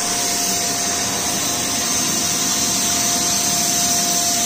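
Household vacuum cleaner running steadily, its hose sucking the air out through the valve of a plastic vacuum storage bag so that the bag shrinks tight around a spring mattress. A steady whine sits over the rushing air.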